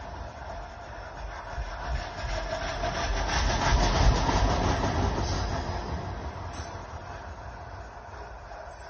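Loaded coal hopper cars of a freight train rolling past, a steady rumble of steel wheels on the rails that swells about halfway through and then eases off.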